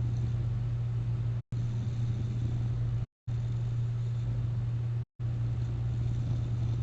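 CPAP machine running with a steady low hum, cut off to dead silence for a split second three times.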